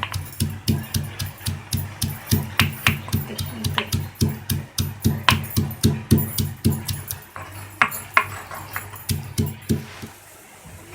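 Whole coriander seeds being lightly pounded so they will cook through: a run of quick, regular thuds with a click on each, about three to four a second, thinning to a few spaced strikes near the end.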